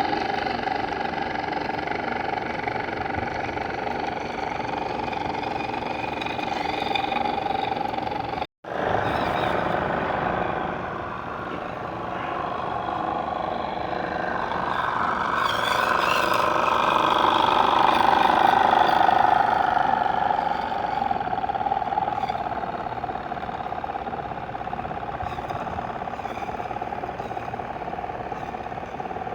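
A motor running with a steady drone that swells louder for a few seconds around the middle. The sound cuts out for an instant about eight seconds in.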